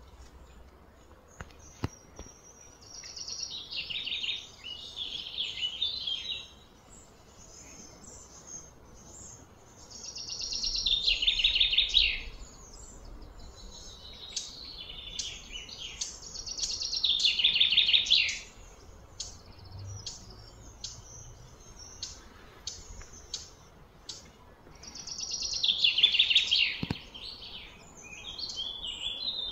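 A songbird singing: phrases of two to three seconds that fall from high to lower pitch, repeated five times with pauses of several seconds between them.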